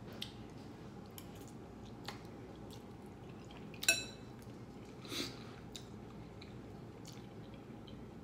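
Quiet wet chewing and mouth sounds of someone eating noodles, with scattered small clicks. About four seconds in there is one sharp, ringing clink of a metal fork against a glass bowl.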